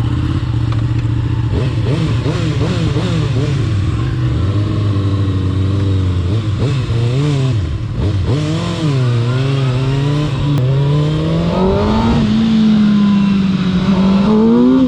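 Kawasaki ZX-6R sport bike's inline-four engine pulling away and accelerating, its pitch rising and falling with the throttle at first, then climbing steadily through the gears from about halfway in.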